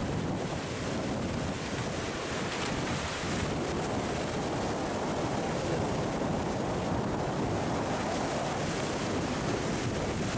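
Sea surf breaking and washing over shoreline rocks, a steady rushing wash, with wind buffeting the microphone.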